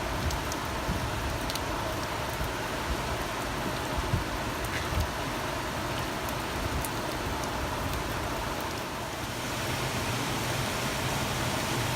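Rain falling steadily, with scattered sharp drop hits. About nine seconds in, this gives way to an even, deeper rushing noise.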